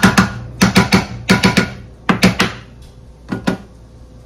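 Meat chopper tool clacking against a frying pan: quick clusters of two or three sharp knocks, about a dozen in all, thinning out in the last second or so.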